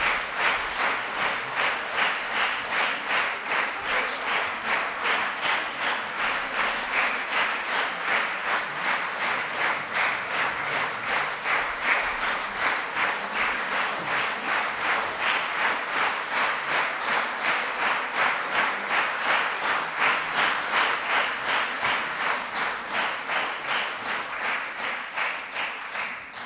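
Concert audience applauding, clapping together in a steady rhythm of about two to three claps a second, dying away suddenly at the very end.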